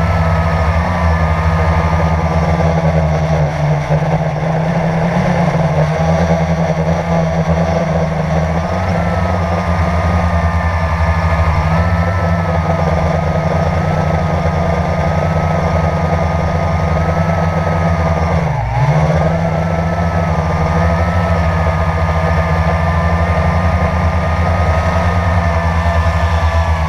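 Quadcopter drone's electric motors and propellers buzzing steadily, heard close up from the camera on board. The pitch drifts as it manoeuvres, with one brief sharp dip and recovery about two-thirds of the way through.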